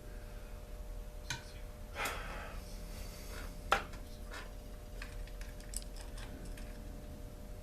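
Scattered clicks and taps of hand tools and small metal parts being handled during a chainsaw teardown, with a short scraping rustle about two seconds in and one sharp click near the middle, over a steady faint hum.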